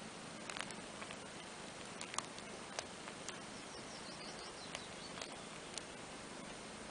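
Small scattered wet clicks and ticks over a steady hiss: a kitten nuzzling and licking into a cat's fur.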